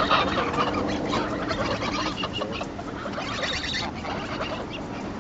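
Greylag geese giving short, low clucking calls, with footsteps crunching on gravel.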